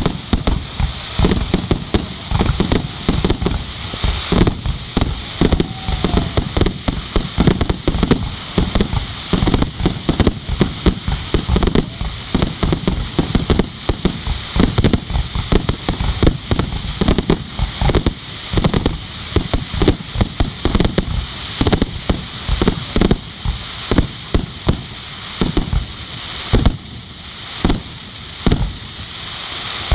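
Fireworks display: aerial shells launching and bursting in a rapid, irregular barrage of bangs, several a second, over a steady hiss.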